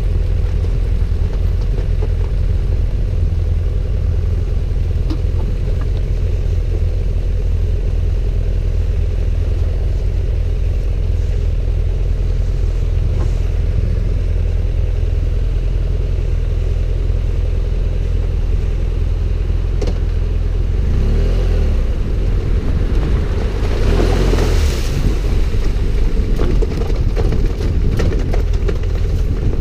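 Adventure motorcycle under way, its engine running with a steady low rumble. About three-quarters of the way in, a louder rush swells for a few seconds and fades.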